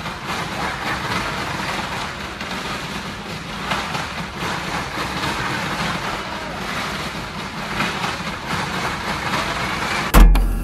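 Vehicle engines of a well-of-death motordrome running in a steady, noisy drone, with a sudden loud low boom near the end.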